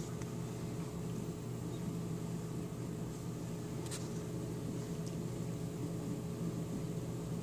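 Steady low mechanical hum over a faint hiss, with a single faint click about four seconds in.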